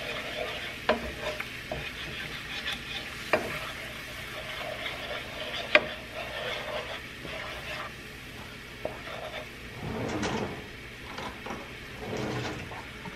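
Wooden spoon stirring a thick red chili sauce in a nonstick pan, smacking against the pan now and then in a few sharp knocks, over the soft sizzle of the simmering sauce.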